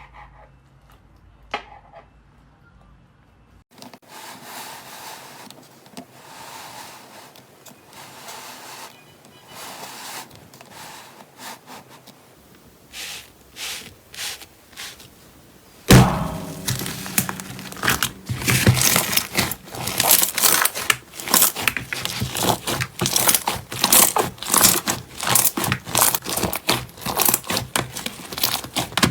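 Slime being pressed and squeezed by hand: soft crackling and squishing at first, then from about halfway in a dense run of loud crackles and pops.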